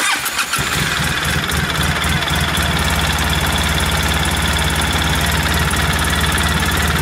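An ATV's 700cc twin-cylinder engine starting up and settling into a steady idle, its fresh oil being run around after an oil change.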